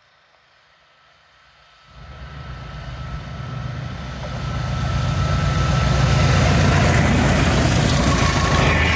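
Pair of English Electric Class 20 'chopper' diesel locomotives approaching and passing close, their eight-cylinder engines' low pulsing sound rising suddenly about two seconds in and growing steadily louder, with rail and wheel noise as they come level.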